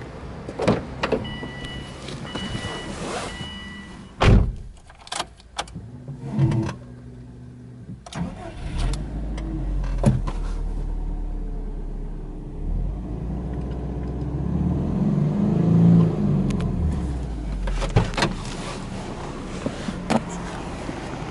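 A warning chime beeps a few times, followed by knocks and clicks from the car's doors and cabin. Then the Subaru Impreza WRX STi's turbocharged flat-four boxer engine starts, about eight seconds in, and settles into a steady idle. The engine sound swells briefly about halfway through the idle.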